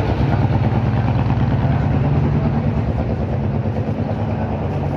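Street traffic: a motor vehicle's engine running close by, a heavy low rumble that is loudest in the first couple of seconds and then eases a little.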